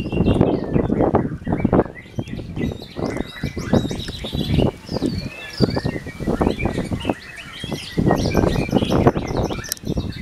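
Caged songbirds, a white-rumped shama among them, chirping and singing in quick, varied phrases over loud, uneven low background noise.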